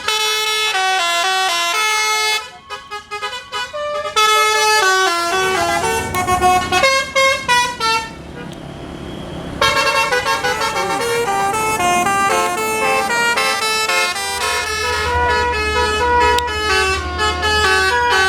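Basuri 'telolet' multi-tone air horn on a bus playing quick tunes of stepped, buzzy notes, with a short break a little past halfway. A low steady drone comes in near the end.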